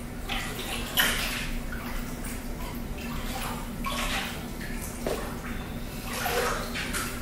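Pool water sloshing and splashing in irregular swishes as arms sweep through it during an aquatic exercise, over a steady low hum.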